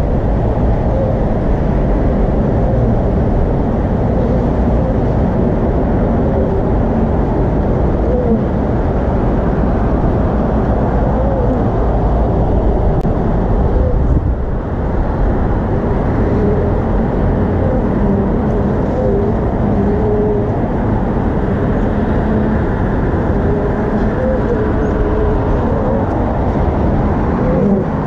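Feral European honeybees buzzing at their nest in a tree hollow: bees flying close by pass as wavering hums over a steady low rumble.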